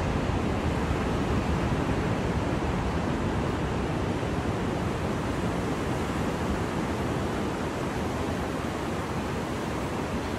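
Steady rushing noise of sea surf and wind, with wind on the microphone.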